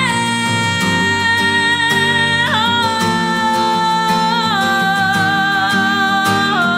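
Worship song: a singer holds long, high sung notes, sliding down to a lower held note about two and a half seconds in and again about four and a half seconds in, over guitar accompaniment.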